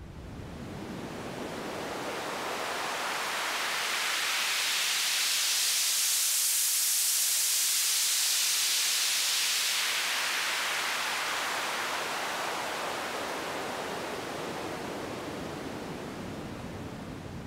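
Synthesized swish sound effect: filtered noise from FL Studio's stock generators, swept slowly so it grows brighter and louder to a peak about halfway through, then dulls and fades away.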